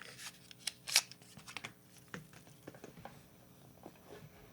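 Light rustling and scattered small clicks of earbud packaging and ear tips being handled, the sharpest click about a second in.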